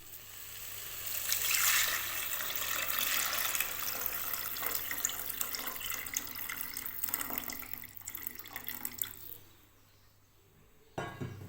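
Tamarind water being poured from a vessel into the rasam pan: a steady splashing pour that thins into a few drips and stops about nine seconds in. A short low thump follows near the end.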